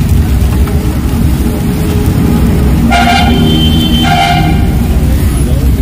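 Two short vehicle horn honks about a second apart, over a steady low rumble.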